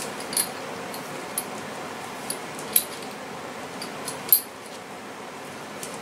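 Light metallic clinks and rattles, about five scattered over several seconds, the loudest about four seconds in, as copper wire is handled and looped through the straps and hardware of a hanging heavy punching bag.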